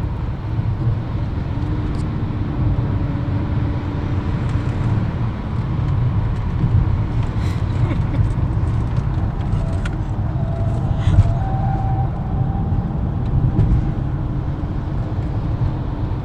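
Inside the cabin of a car moving at speed: a steady low rumble of engine and tyre noise from the road.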